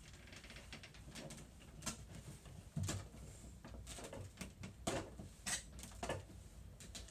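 Scattered light clicks and taps, irregularly spaced, as a plastic slatted window shutter is pressed into place against the window glass.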